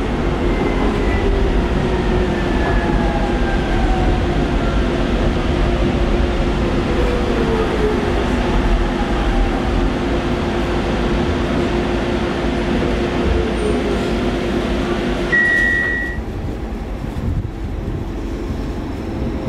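Docklands Light Railway car running: a steady low rumble with motor whines gliding down in pitch. About fifteen seconds in comes a single short high beep, then the sound drops to a quieter platform hum as a train's whine begins to rise near the end.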